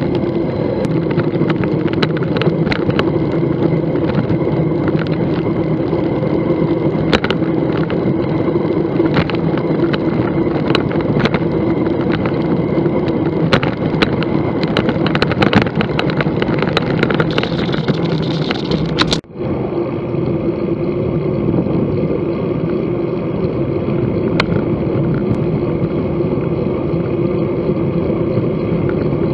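Bicycle riding at speed: wind on the microphone and tyre noise on the paved path, with frequent short knocks from bumps. A brief dropout about two-thirds of the way through, after which it sounds duller.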